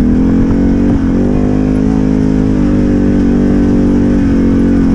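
Off-road vehicle engine running steadily on a trail ride, close and loud, its pitch stepping up slightly about a second in and dipping briefly near the end with the throttle.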